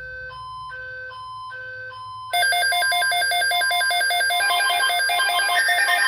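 Weather alert radio going off for a tornado watch: a short chime of alternating electronic beeps, then from about two seconds in a louder, rapidly pulsing alarm tone.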